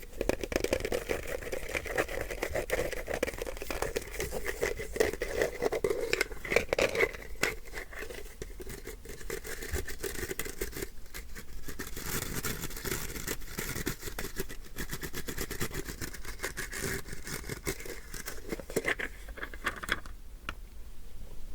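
Rapid scratching close to the microphone, a dense stream of tiny clicks that turns thinner and hissier about seven seconds in.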